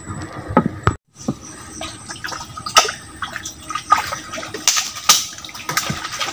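Shallow pond water splashing and sloshing as someone wades through it, with several sharper splashes among the steady lapping. The sound cuts out completely for a moment about a second in.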